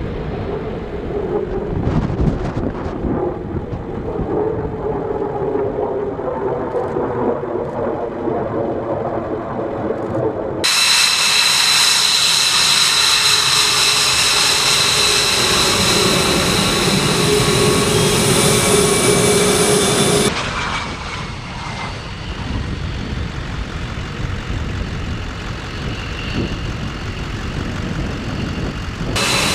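F-22 Raptor jet engines heard in three shots that cut abruptly from one to the next. First comes a distant jet on afterburner, a low rumble with slowly shifting pitch. About ten seconds in, a loud, steady, high-pitched turbine whine takes over as an F-22 taxis close by, and about twenty seconds in it gives way to a lower rumble as one takes off.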